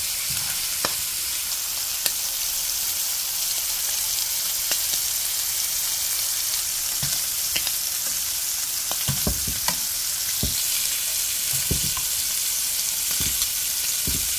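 Shrimp frying in avocado oil in a pan, sizzling steadily, with scattered clicks of metal tongs against the pan and shrimp as they are turned, more of them in the second half.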